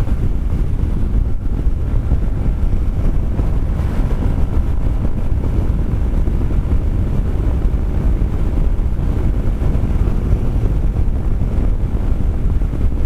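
Steady wind noise buffeting the microphone over the running drone of a Kymco Xciting 400i maxi-scooter being ridden.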